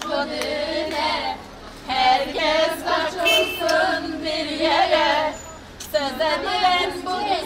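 Several voices, mostly women's, singing together without instruments, in phrases broken by short pauses about a second and a half in and near six seconds in.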